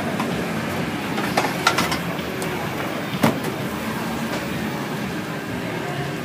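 A motor vehicle running steadily amid street noise, with a few sharp clicks or knocks, the loudest about three seconds in.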